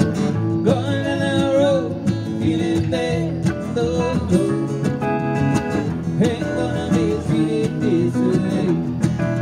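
Several acoustic guitars strummed together in a country-folk song, with a man singing the melody over them.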